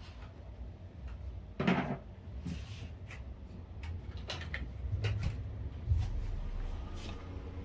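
Hard parts being handled on a work surface: scattered clicks and knocks, with the loudest knocks about a second and a half in and again near six seconds.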